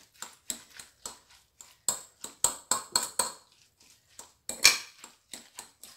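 A hand kneading and squeezing a wet grated-cauliflower and egg mixture in a glass bowl: a quick run of squishing and clicking strokes, about three or four a second, that pauses briefly in the middle and comes back louder.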